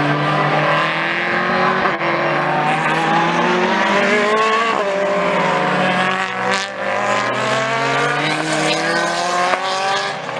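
Single-seater race car engines at racing revs, more than one running at once. Their pitch climbs steadily as they accelerate and drops at a gear change about halfway through.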